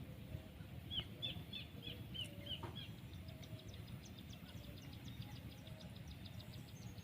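Birds calling: a quick series of about seven short, repeated high notes, then a fast run of thin high ticking notes, over a low steady outdoor rumble.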